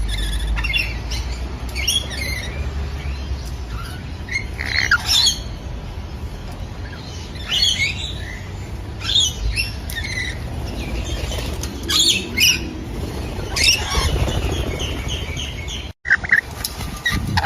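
Parrots squawking: repeated short, harsh calls, one every second or two, with a brief break about sixteen seconds in and then a quicker run of calls.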